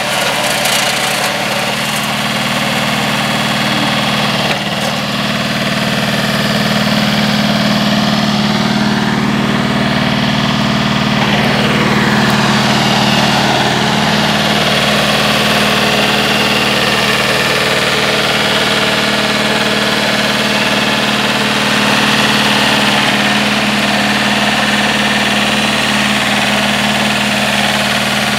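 Mini crawler tractor's 954 cc two-cylinder diesel engine running steadily under load, driving a Zanon TML 115 flail mower that is cutting through weeds and brush.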